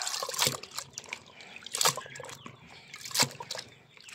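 Water sloshing and splashing in a plastic basin as a young chicken is dunked and scrubbed in it by hand, with three sharper splashes, the later two the loudest.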